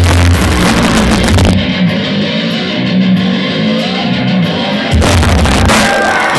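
Heavy metal band playing live, heard loud. About a second and a half in, the drums and bass drop out and electric guitar plays on alone. The full band crashes back in about five seconds in.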